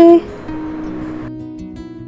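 Background music of soft plucked acoustic guitar notes. A loud held tone cuts off just at the start.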